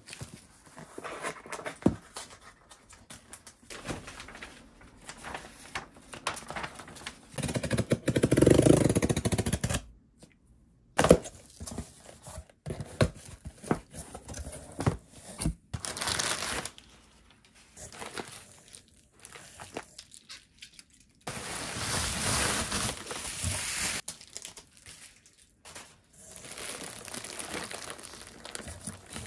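A cardboard box being opened and unpacked by hand: packing tape ripped off, flaps and crumpled packing paper handled, and plastic food bags rustling as they are lifted. The noise comes in irregular bursts with a few sharp clicks, and the loudest tearing comes about eight seconds in.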